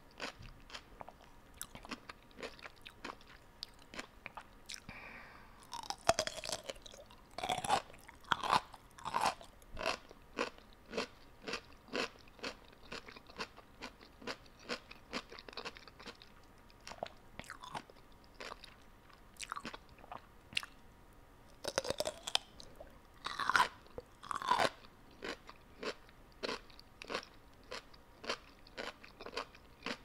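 A person chewing crunchy food close to the microphone, with a steady rhythm of about two crunches a second. The crunching turns louder and denser from about six to nine seconds in, and again from about twenty-two to twenty-five seconds.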